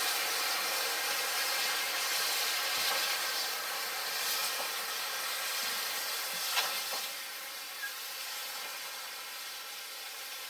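Steam hissing from GWR 14xx-class 0-4-2T tank engine No. 1450 as it moves away, the hiss slowly fading. A sharp click about six and a half seconds in and a fainter one a little later.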